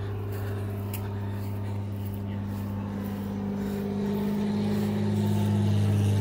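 An engine running with a steady low hum, its pitch shifting slightly and growing louder over the last couple of seconds.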